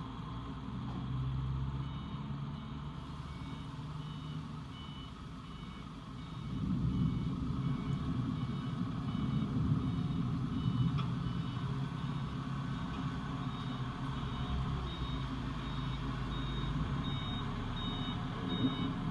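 A vehicle's reversing alarm sounding a high beep at a steady, even rhythm over a running engine, which grows louder about six seconds in.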